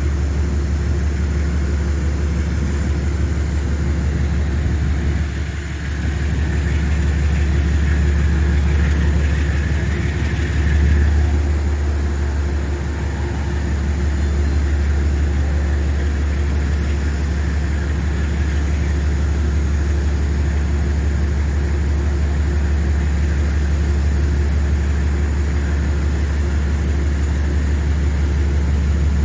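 Metro-North diesel locomotive 227, a GE Genesis P32AC-DM, running steadily as it pushes a Hudson Line commuter train, a loud, constant low engine hum.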